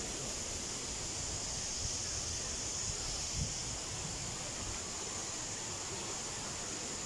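Steady rushing of a stream running over rocks, with one brief low thump about three and a half seconds in.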